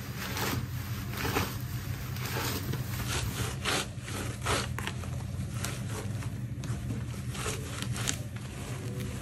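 Fresh cassava shoots being rubbed and crushed by hand in a woven tray: a scrunching, scraping rustle in irregular strokes about once or twice a second, like scrubbing cloth. The leaves are being bruised to soften them before cooking.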